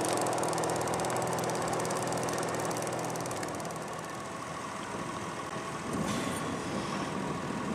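A small motor on a fishing boat hums steadily, then cuts out about three and a half seconds in.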